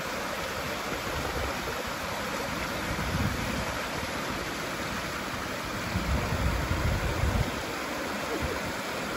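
Mountain river water rushing steadily over a cascade between pools, with a few low swells in the rush about three seconds in and again around six to seven seconds.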